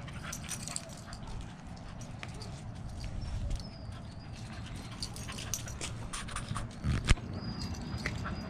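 A small dog's claws ticking on concrete and the handler's footsteps as the leashed dog searches, giving many short clicks over a low steady rumble. A single sharp knock about seven seconds in.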